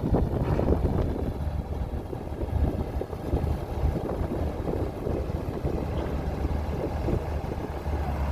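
A Komatsu D41P bulldozer's diesel engine running steadily, with a constant low drone and irregular rattling over it.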